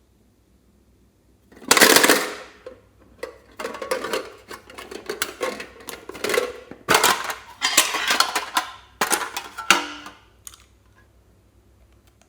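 Slime being squished and worked by hand, giving a run of crackling, clicking noises in several bursts. It starts about a second and a half in and stops near the end.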